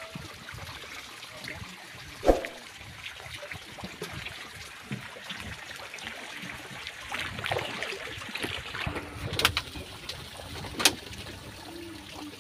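Water lapping and trickling around a small boat in calm shallows, with a few sharp knocks from the hull as people step and move about in it.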